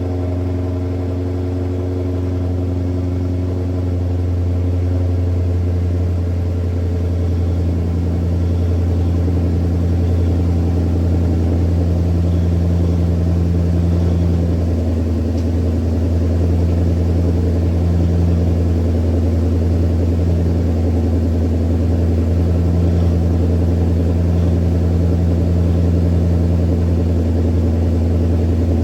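Maserati Quattroporte 4.2's V8 idling steadily on its stock exhaust during the warm-up after a cold start, a deep, even low note.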